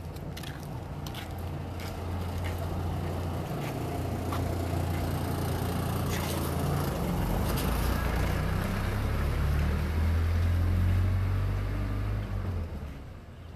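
Low engine rumble of a passing road vehicle, swelling over several seconds and then falling away sharply near the end.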